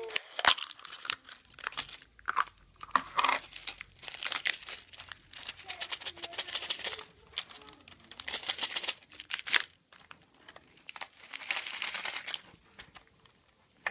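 Printed foil wrapper of a surprise egg being crinkled and torn open by hand, in irregular bursts of rustling.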